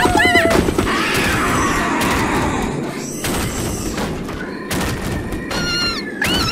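Cartoon soundtrack effects: thuds and booms under dense noise, with a high squealing cry right at the start and another near the end.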